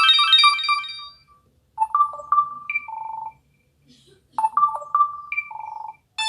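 Samsung Gravity 2 (SGH-T469) mobile phone playing ringtones through its loudspeaker: the end of a fast run of rising and falling notes, then a short electronic jingle of a few notes ending in a buzzy held tone, played twice with a pause between. A new ringtone starts right at the end.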